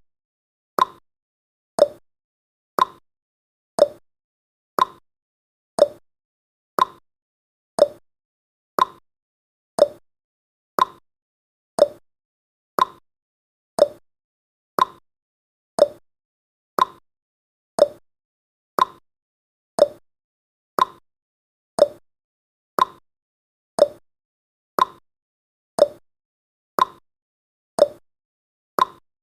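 Countdown timer's clock-tick sound effect: one sharp tick each second, alternating between a lower and a higher tick like a tick-tock.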